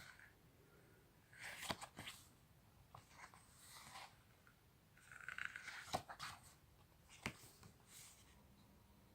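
Pages of a thick paper booklet being handled and turned, a series of soft rustles with a few crisp snaps, the loudest just before the middle.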